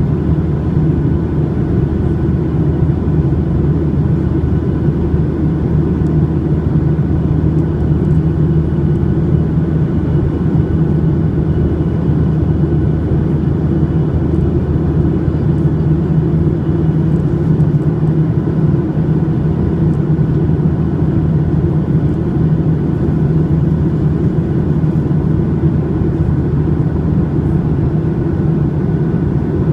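Steady cabin drone of a Boeing 737-800 in flight, its CFM56 engines and the airflow heard from a window seat inside the cabin: a loud, even low rumble with a few faint steady tones above it.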